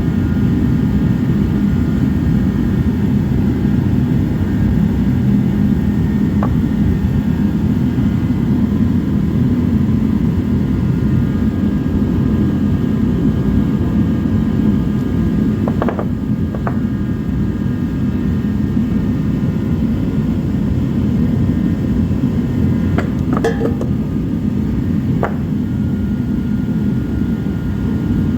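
Forced-air jet heater running with a steady, loud rushing noise and a faint steady whine. A handful of sharp clicks and clinks stand out, two close together about halfway through and a small cluster near the end.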